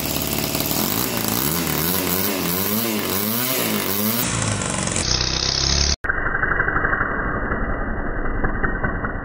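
Homemade 6.5 cc single-cylinder four-stroke glow model engine with a rotary valve, running on methanol-nitro fuel, revved up and down several times on the throttle, then held at high revs. About six seconds in the sound breaks off sharply and carries on duller, with the treble cut away.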